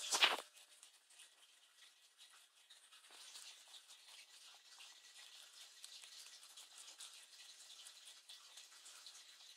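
Lop-eared rabbit chewing spinach leaves: quiet, rapid, crisp munching that picks up about three seconds in. A short louder knock right at the start.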